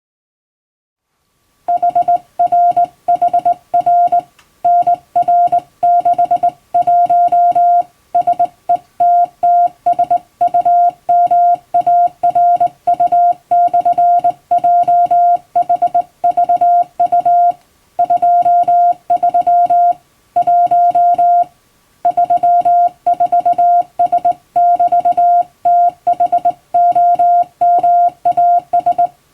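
Hand-sent Morse code: a steady mid-pitched beep keyed on and off in short dots and longer dashes, grouped into characters with brief pauses between them. It begins about two seconds in.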